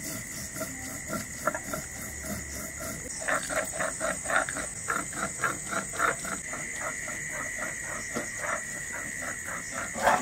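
Night insects chirring steadily in two high tones. From about three seconds in, a run of quick strokes, about four a second, plays over them.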